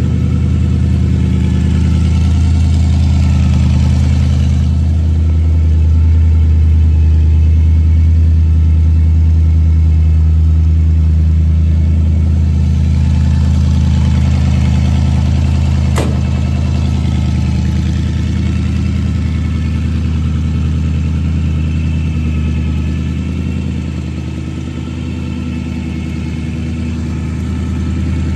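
Hot rod engine in a 1926 Ford Model T truck idling steadily, with a low even rumble. A single sharp click comes a little past halfway.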